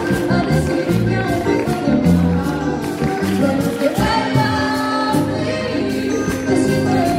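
Live vallenato music: a woman sings into a microphone over a button accordion and percussion keeping a steady beat.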